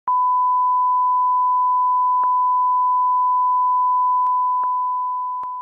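1 kHz line-up test tone accompanying colour bars: one steady pure tone that begins to fade about four seconds in.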